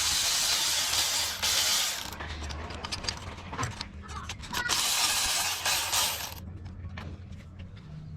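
Ratchet wrench clicking in two spells of about two seconds each, with scattered tool clinks between.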